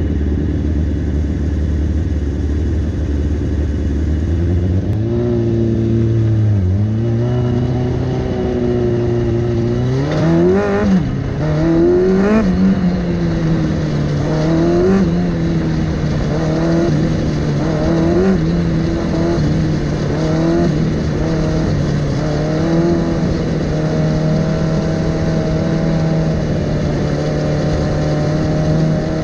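Onboard sound of an open-wheel dirt-track race car's engine. It idles low for about four seconds, then picks up and runs at a steady moderate speed around the oval, its pitch dipping and rising again every couple of seconds as the throttle is eased for the turns.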